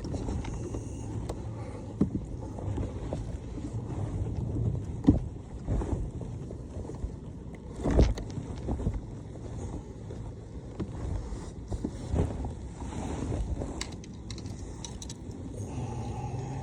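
Wind rumbling on the microphone and water lapping against a kayak's hull, with scattered short knocks, the loudest about eight seconds in.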